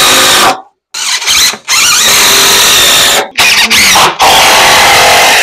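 Cordless drill-driver driving screws into a wooden stair step, in about five loud runs with short pauses between them, the motor's pitch bending as it works; the last run cuts off sharply.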